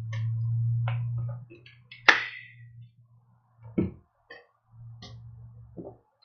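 Plastic power bank case being pried apart against strong double-sided tape: scattered clicks and snaps, with one sharp crack about two seconds in. Under them is a low hum that starts and stops.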